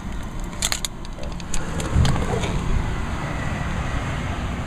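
Car keys clicking and jangling just after the engine is switched off, with a few sharp clicks under a second in, then a low rumble of handling noise from about two seconds in.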